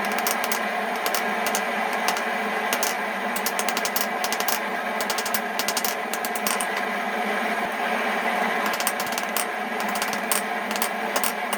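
A forge running steadily, with scattered light metallic clicks and taps over it.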